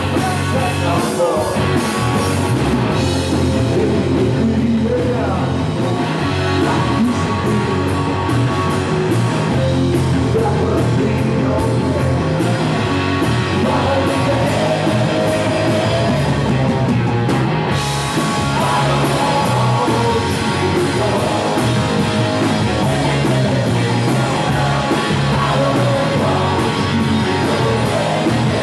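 Live rock band playing: electric guitars including a hollow-body, bass guitar and drums, with a male lead singer. The music is loud and continuous.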